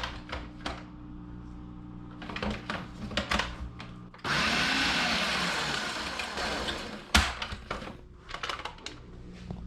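An electric kitchen blender runs in one burst of about three seconds, chopping freeze-dried vegetables (sweet potato, broccoli, green beans) into rough pieces. A few clicks and knocks of handling come before it, and a thunk as it stops.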